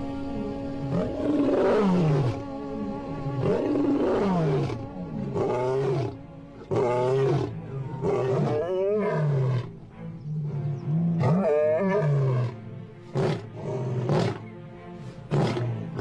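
Male African lion roaring: a long series of deep roars and grunts, about one a second, over background music.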